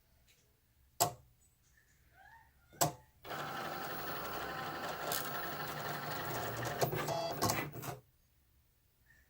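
Cricut Explore 2 cutting machine running for about five seconds with a grinding noise, preceded by two sharp clicks. The grinding is the abnormal sound the owner is showing.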